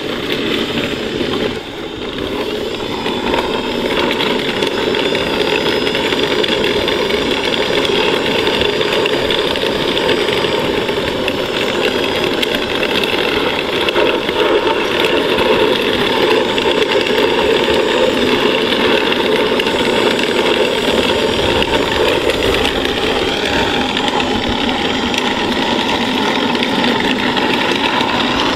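Electric drive motors and gearboxes of a 1/6 scale Armortek Tiger I RC tank whining steadily while its metal track links clatter over the sprockets, idlers and road wheels as it drives. The sound picks up about two seconds in. The tracks are freshly tightened, with one link removed from each side and the rear idlers adjusted.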